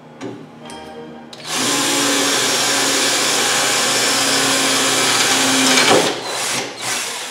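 Handheld power drill running steadily for about four seconds, then stopping and starting in a few short bursts near the end.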